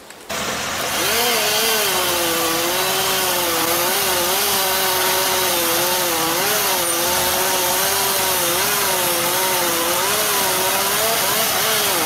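A chainsaw running as it cuts into a tree limb, its engine note wavering up and down steadily as the chain works through the wood.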